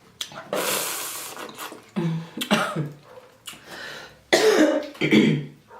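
A woman coughing and clearing her throat in three bouts, a rough hissing one about half a second in and two throatier ones about two and four and a half seconds in.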